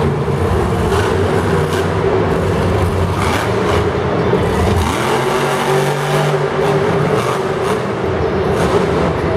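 Monster Energy monster truck's supercharged V8 engine revving hard under throttle, its pitch rising and falling about halfway through as the truck is driven over the dirt jumps.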